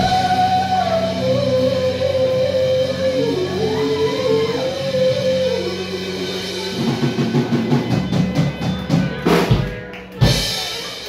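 Live rock band playing: a held, sliding lead melody over steady bass and guitar, then a run of drum hits that ends the song with one loud final strike about ten seconds in.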